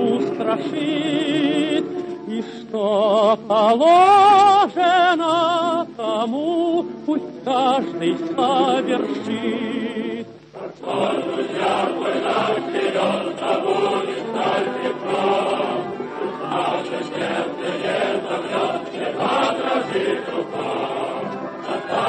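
Vocal music: a single voice sings with wide vibrato, then after a brief dip about halfway through, a full choir takes over.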